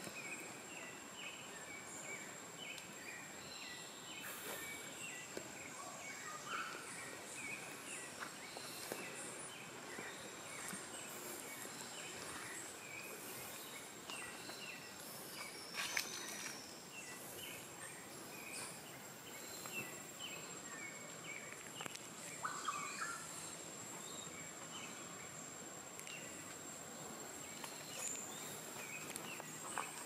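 Tropical rainforest ambience: a steady high-pitched insect drone runs underneath many short bird chirps and calls. A few soft knocks of footsteps on the dirt trail come through, one about halfway and one near the end.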